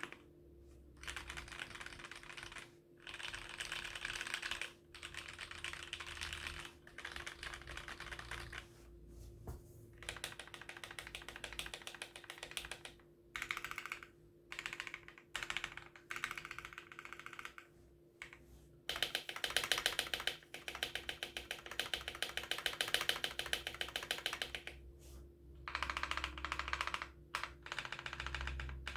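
Typing on a 60% mechanical keyboard with lubed and filmed Gateron Yellow linear switches on an aluminum plate in a frosted acrylic Tofu case: fast runs of key clacks in bursts of a few seconds with short pauses between, the busiest and loudest run about two-thirds of the way in.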